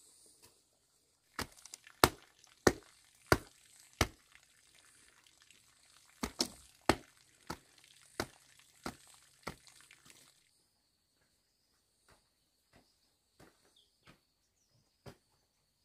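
Repeated sharp striking blows of a hand tool at work, evenly paced at about three every two seconds, in two runs of six or seven with a short pause between. After that only a few faint light knocks follow.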